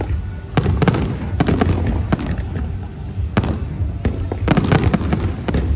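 Aerial fireworks bursting in an irregular run of sharp bangs, several close together, over a continuous low rumble.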